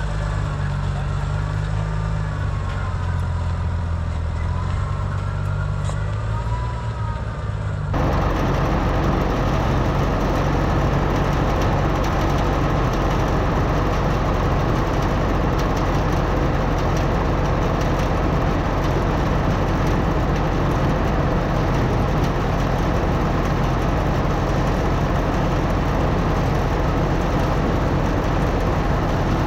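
Farm tractor engine running, its pitch rising and falling. About eight seconds in the sound changes abruptly to a louder, steady din of an engine driving machinery.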